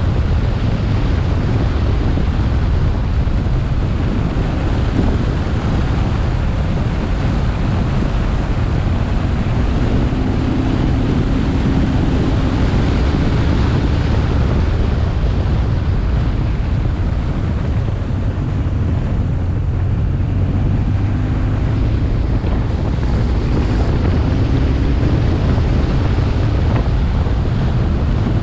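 Wind buffeting a helmet-top action camera's microphone at road speed on a BMW R1150R motorcycle, a steady low rumble, with the bike's air-cooled boxer-twin engine faintly heard beneath it at times.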